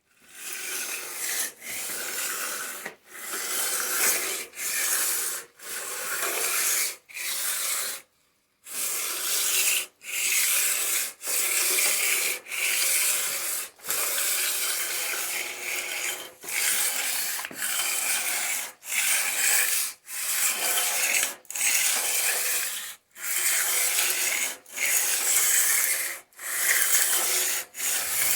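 Abrasive rubbing along a metal lathe rail as it is polished: a steady rasping hiss in repeated strokes, about one every second and a quarter, with short breaks between them and one longer pause about eight seconds in.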